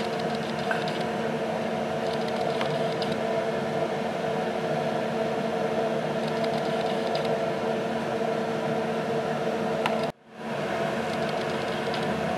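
Steady hum and rumble inside a moving intercity passenger train carriage, with a few faint clicks from the running gear. The sound cuts out abruptly for a moment about ten seconds in, then fades back.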